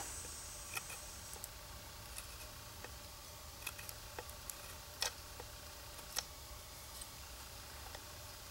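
Knife blade shaving a wooden axe handle: faint, irregular short clicks and scrapes as thin cuts are taken off the high spots where the axe head sticks, so it will seat further down.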